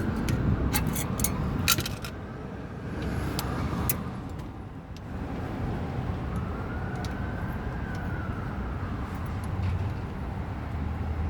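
A few sharp metal clinks in the first two seconds, from a pry bar working a suspension part into line, over a steady low rumble of vehicles. A faint tone rises and falls again a little past the middle.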